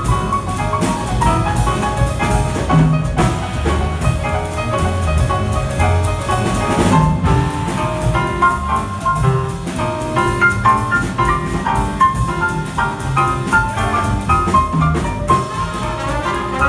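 Jazz big band playing live: quick melodic lines over a bass line and drum kit.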